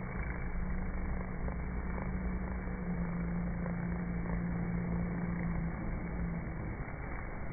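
Many honeybees buzzing at a busy hive entrance: a steady, low hum of wings that swells a little in the middle.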